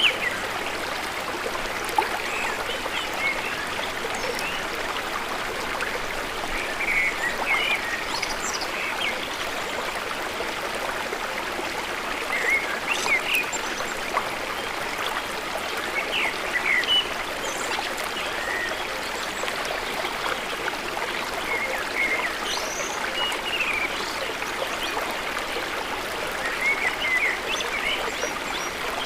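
A small river or stream flowing steadily, with birds giving short chirps and quick rising and falling calls now and then over the water.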